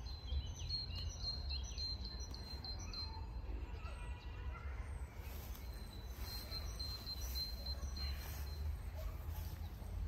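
Birds chirping and singing, with a steady high note breaking off and returning, over a steady low rumble.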